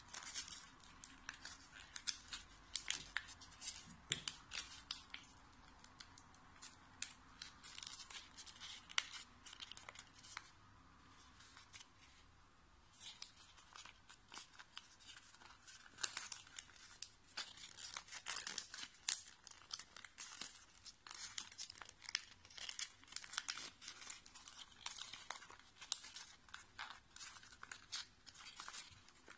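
A square of origami paper crinkling and rustling under the fingers as it is folded and pinched into a lotus, in irregular crisp crackles, with a quieter pause from about ten to thirteen seconds in.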